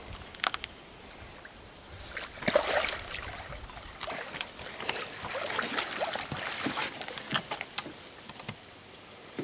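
A large wels catfish being hauled out of the water onto a wet unhooking mat: water splashing and dripping as its tail kicks. The loudest splash comes about two and a half seconds in, followed by a longer run of splashing a couple of seconds later.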